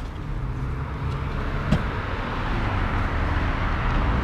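Truck engine running with road noise growing louder as it moves off, and a single short click partway through.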